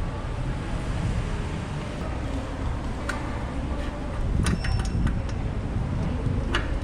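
Hand tools working on a bicycle's seat and handlebar fittings: sharp clicks and clinks, a cluster of them a little past the middle, a few ringing briefly, over a steady low rumble.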